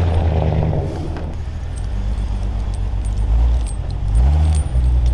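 Vehicle engine running steadily, rising in pitch briefly about four seconds in, with light metallic clinking of tyre chains.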